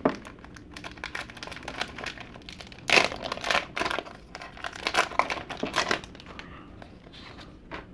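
A foil wax pack of 1991 Leaf Studio baseball cards is torn open and crinkled by hand. The crackling comes in irregular bursts and is loudest about three seconds in and again around five to six seconds.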